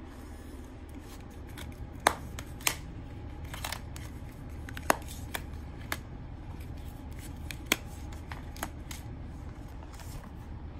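Flip phones (an LG Classic Flip, a Nokia 2760 Flip and a TCL Flip 2) being handled and snapped shut one by one: a string of plastic clicks and snaps. The three sharpest come a little under three seconds apart.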